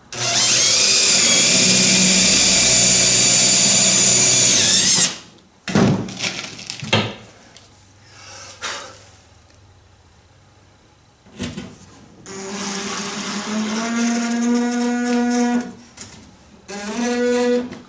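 Cordless drill drilling pilot holes through quarter-inch plywood. It runs steadily for about five seconds, followed by a few knocks. After a quiet spell it runs again for about three seconds, its pitch rising a little, and gives one more short burst near the end.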